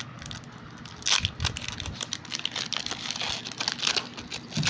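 Foil wrapper of a Pokémon booster pack crinkling and tearing as it is opened: a run of short crackly rustles that starts about a second in.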